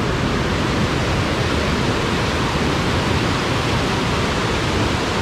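Waterfall rushing, a steady, even wash of falling water.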